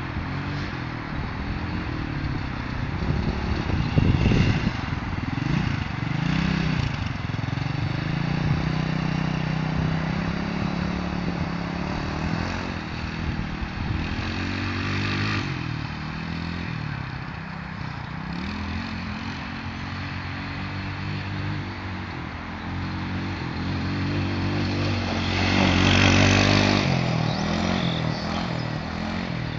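Small dune buggy's engine running as it drives around, its pitch rising and falling with the throttle. It swells and fades with distance and is loudest near the end.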